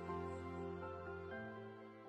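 Soft background music of sustained chords, fading out.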